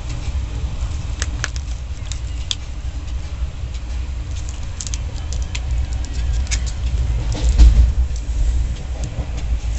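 Steady low rumble of a vehicle in motion, with frequent light rattling clicks over it and a louder jolt about three quarters of the way through.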